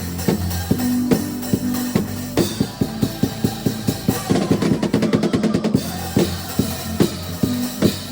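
Drum kit played along to a song with a bass line, in a steady kick-and-snare beat. About halfway through, a fast run of strokes forms a fill before the beat resumes.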